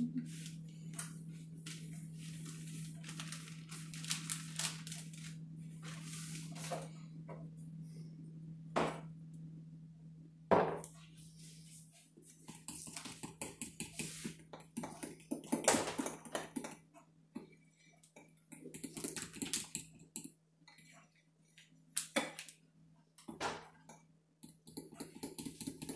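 A spoon stirring biscuit batter in a glass mixing bowl: irregular clinks and scraping, with a couple of sharper knocks against the glass. A steady low hum stops about ten seconds in.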